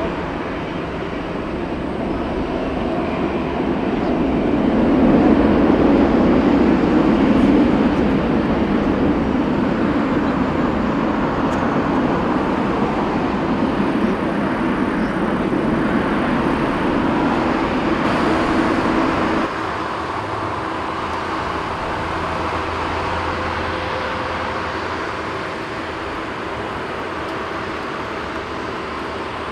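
Four jet engines of a Boeing 747-400 freighter during its landing rollout, a loud rushing noise that swells a few seconds in, typical of reverse thrust being applied. About two-thirds of the way through it drops suddenly to a quieter, steady engine hum as the jet slows.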